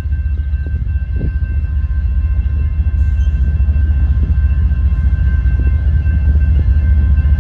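Low rumble of an approaching train, growing gradually louder, with the railroad crossing's warning bell ringing as a steady high tone over it.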